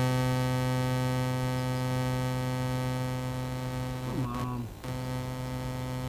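Steady electrical buzz from the powered-up quadcopter's electronics, picked up by the camera mounted on the frame, with the propellers not turning. About four seconds in it briefly slides down in pitch and drops out, then comes back.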